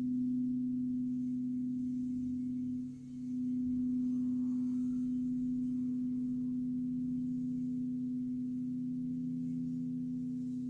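Crystal Tones alchemy crystal singing bowls ringing together in a steady, sustained hum: one strong middle tone with lower tones beneath it. The sound dips briefly about three seconds in and swells back.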